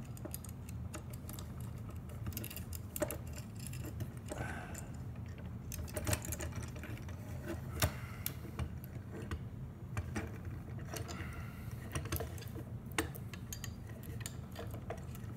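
Scattered light clicks and taps of small metal parts being handled as a guide scope's base is lined up and screwed onto a telescope's carrying handle, over a steady low hum.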